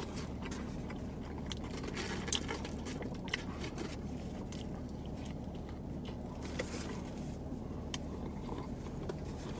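Someone chewing a fast-food sandwich, with scattered crinkles and clicks from its paper wrapper, over a steady low hum inside a car.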